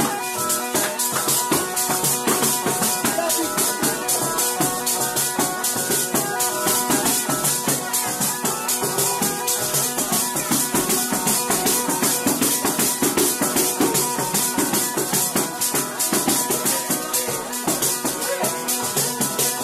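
Calabrian zampogna (bagpipe) playing a tarantella, its steady drones under the chanter's melody, accompanied by a tamburello (frame drum with jingles) beaten in a fast, even rhythm.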